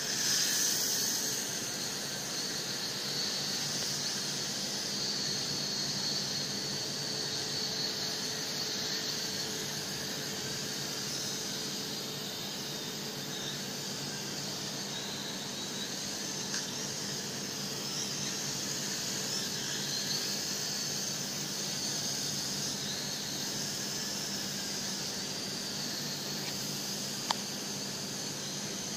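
Toy quadcopter's four small motors and propellers whining in flight, a high whine that wavers in pitch over a steady hiss, loudest about half a second in as it passes close. A single sharp click near the end.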